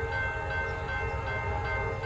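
Locomotive air horn sounding a steady multi-note chord, held over the low rumble of a moving train.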